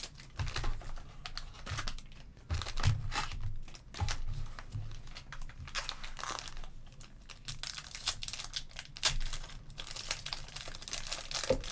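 Foil trading-card packs crinkling and rustling as they are handled and pulled from a Donruss Basketball box, with a pack's foil wrapper being torn open near the end.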